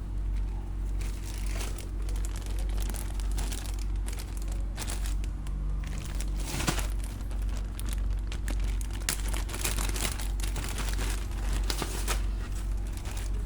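Plastic packaging being crinkled and torn open in irregular rustling handfuls, over a steady low hum.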